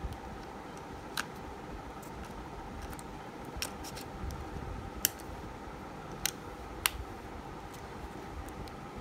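Nikon D7200 battery and battery-compartment door being handled: about five sharp plastic clicks spread over several seconds, the loudest about five seconds in, as the battery is pushed into its latch and the door is snapped shut. A faint steady hum underneath.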